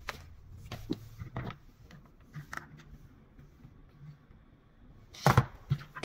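Scattered clicks and knocks from plastic poultry drinkers being stood on, stepped off and handled, with a louder thump about five seconds in.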